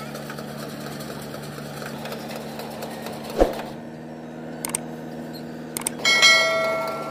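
Tractor engine and a tractor-drawn Redlands baler running steadily in the field, with a sharp thump about halfway through. Near the end come two mouse clicks and a ringing notification-bell chime from a subscribe-button animation.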